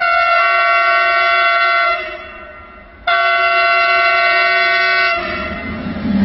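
Electric freight locomotive's horn sounding two long blasts of about two seconds each, several tones at once, as the train approaches. Near the end the loud rush of the locomotive passing close by begins.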